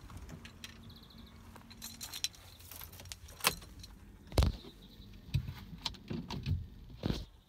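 Car keys jangling and a series of knocks and bumps as the phone is handled inside a car's cabin, the loudest knock about four and a half seconds in.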